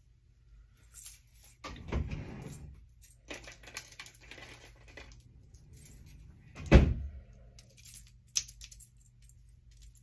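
Hands twisting and pinning up a section of hair: rustling and brushing noises with a few light clicks and clinks, and a dull thump about seven seconds in, the loudest sound.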